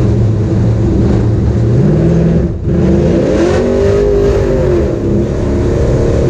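LS1 V8 of a NASCAR truck heard from inside the cab under acceleration: the engine note climbs, drops out briefly about two and a half seconds in at a gear change, then revs up and falls away again as the throttle comes off.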